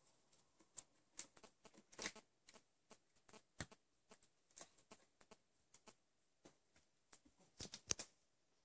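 Faint, scattered clicks and scuffs of a Bengal cat's and kitten's claws and paws on a tiled floor and a sisal scratcher as they wrestle. A quick run of sharper clicks comes near the end.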